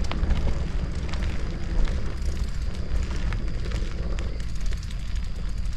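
Steady low wind rumble on the microphone of a bicycle in motion on a concrete road, with scattered light clicks and rattles.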